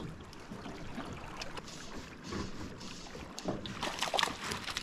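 Water moving around a drift boat's hull, with wind on the microphone, and a few short splashes near the end as a landing net is dipped into the river.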